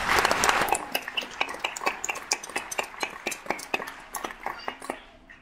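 Audience applauding: dense clapping at first that thins into scattered claps and fades out near the end.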